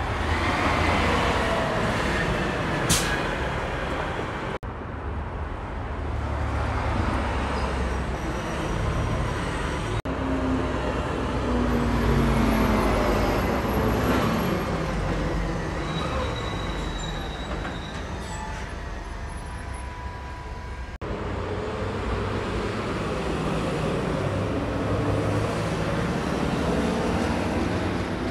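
Heavy diesel trucks driving past one after another, among them a front-loader garbage truck and a tanker semi: a low engine rumble with tyre and road noise that swells and fades as each one passes. The sound breaks off abruptly a few times.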